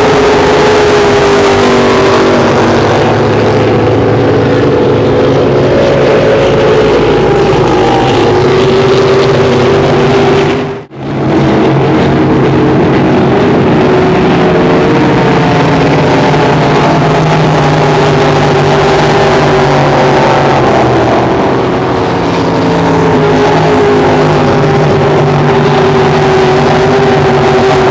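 Racing speedboat engines running at speed as boats pass, a loud steady engine note that drifts slowly up and down in pitch. The sound drops out for a moment about eleven seconds in.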